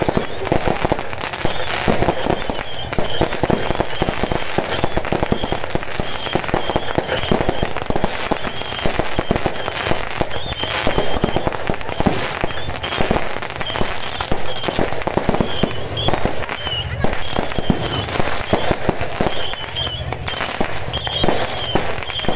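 Fireworks and firecrackers going off in a dense, unbroken run of rapid crackles and bangs.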